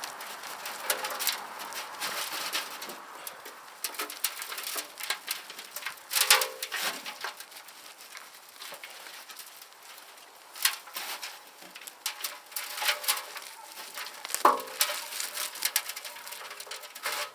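Rustling and scattered cracks and clicks as potting soil and yacon roots are pulled apart by hand, with a few louder snaps, about six, ten and fourteen seconds in.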